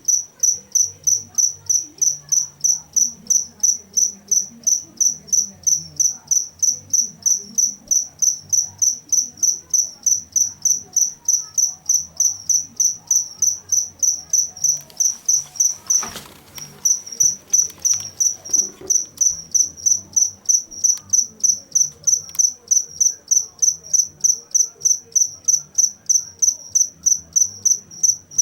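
A cricket chirping steadily, a high-pitched pulse repeating about three times a second, made by rubbing its wings together. Just past the middle the chirping breaks off for a moment under a brief rustle, then resumes.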